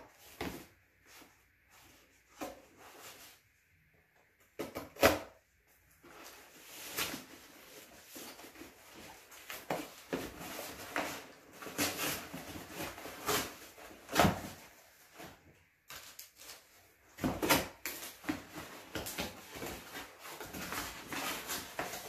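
Cardboard mailing box being opened by hand: scraping, tearing and rustling of cardboard and packing, with scattered clicks and a sharp knock about five seconds in.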